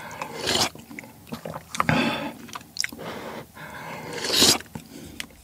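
Close-up eating sounds: sipping ramen broth from a spoon, then slurping and chewing noodles, in short noisy bursts. The loudest slurp comes about four seconds in.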